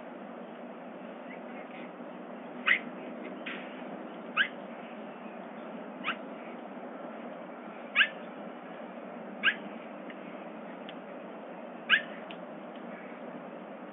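A bobcat making short, high mewing calls, each falling quickly in pitch, about six of them at intervals of one and a half to two seconds, over a steady hiss.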